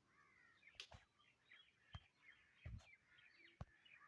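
Faint birds chirping in the background, many short rising and falling chirps, with about five soft knocks spread through it.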